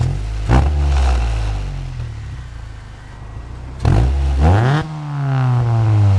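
1994 Acura Integra's inline-four running through a 3-inch cat-back exhaust with a gutted catalytic converter, K&N intake and stock header, just fired up warm. It is revved about half a second in and its pitch falls away slowly for a few seconds, then it is blipped again twice near the four- and five-second marks, dropping back each time.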